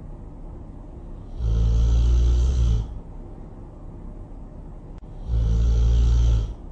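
Loud snoring: two long snores about four seconds apart, each lasting about a second and a half, with a low rumble between them.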